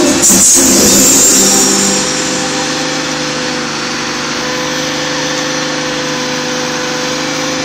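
Fairground ride machinery running with a steady engine-like hum and a constant tone. A louder rushing noise sits over it for the first two seconds.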